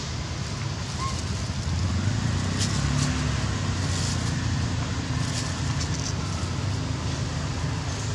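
Low, steady rumble of a motor vehicle's engine, a little louder from about two seconds in, with a few faint clicks over it.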